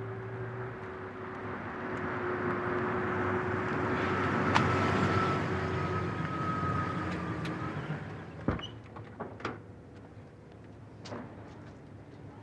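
A vehicle's noise swelling and then fading away, followed by several sharp knocks and clicks.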